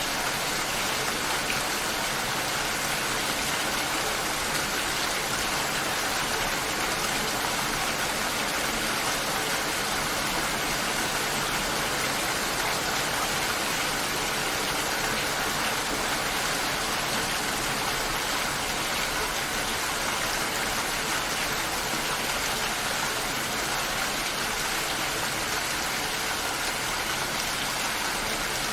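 Steady rain falling, an even hiss of many drops with no single hits standing out.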